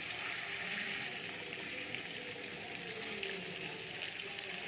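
Fish pieces shallow-frying in hot oil in a kadai over a low flame, a steady sizzle.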